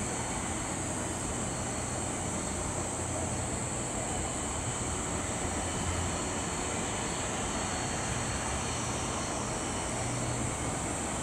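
Boeing 767-300 jet engines running steadily at low thrust as the airliner taxis and turns around on the runway after landing.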